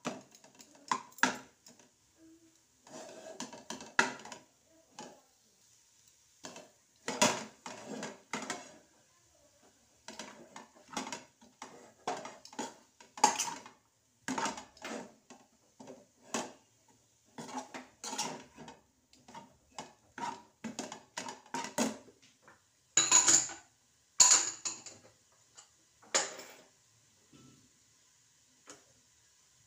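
Stainless-steel spoon scraping and knocking against a non-stick frying pan as it stirs a thick mashed-potato filling, in irregular strokes with a few louder knocks, dying away in the last few seconds.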